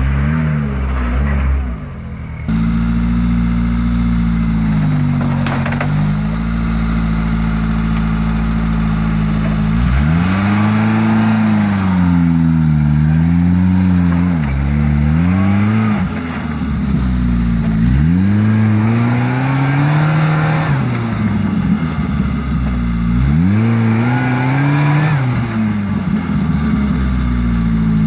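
Suzuki 4x4's engine working as it climbs a muddy, rutted track. It holds a steady note at first, then from about ten seconds in is revved up and down again and again as the throttle is worked.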